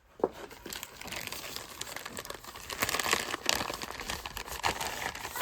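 Plastic packaging crinkling and crackling as it is handled, with many sharp crackles, busiest about halfway through.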